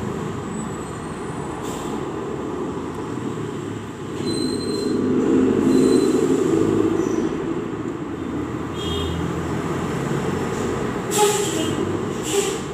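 Low, steady mechanical noise that swells for about three seconds in the middle, with two sharp clicks near the end.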